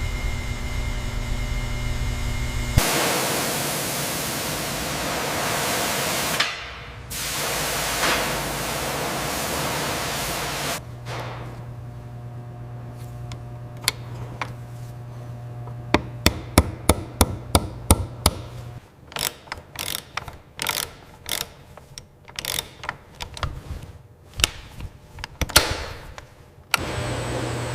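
Workshop tool sounds: a power tool runs with a loud even rushing noise for several seconds. Then comes a long run of sharp hammer blows, several a second at times, in irregular bursts.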